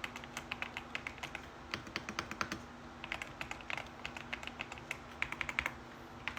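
Typing on a "creamy"-sounding mechanical keyboard: a quick, uneven stream of soft keystroke clicks, several a second, with brief pauses between runs.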